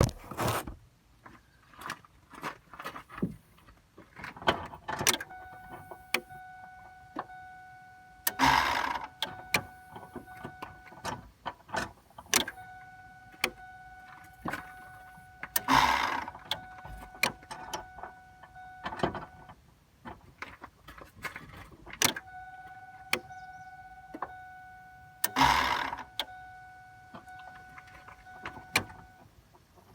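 Electrical clicking and a steady whine from a 2002 Ford F-150 with the key at ON. Clicks come irregularly throughout. Three times the whine switches on with a click, runs for about six seconds with a short rushing noise in its middle, and cuts off. The truck's dash lights stay dark and it cranks but seldom starts.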